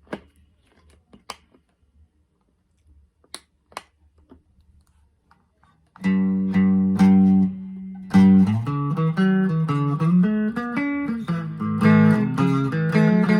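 1983/84 Made-in-Japan Squier Bullet electric guitar. A few faint clicks and small string noises, then about six seconds in it starts playing: a few repeated low plucked notes, a brief pause, then a run of single notes and chords.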